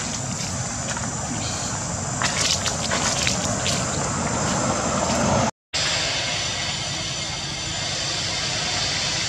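Steady outdoor background noise, a low rumble with a hiss over it, with a few brief high-pitched sounds a couple of seconds in. The sound cuts out for a moment just past halfway, then the noise carries on.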